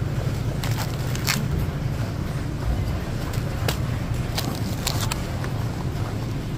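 Steady low hum beside a refrigerated meat display case, with scattered sharp clicks and crinkles of a plastic-wrapped foam tray of beef being touched and picked up.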